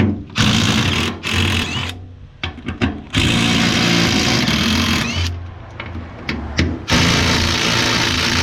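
Power tool, likely an impact wrench, hammering in repeated bursts as it loosens the bolts. Short bursts in the first seconds give way to longer runs from about three seconds in and again near the end.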